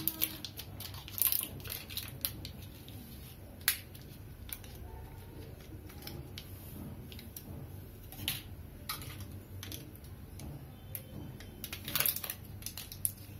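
Paper wrapper of a butter block crinkling and crackling as it is peeled open and squeezed, with scattered sharp crackles and a denser burst near the end.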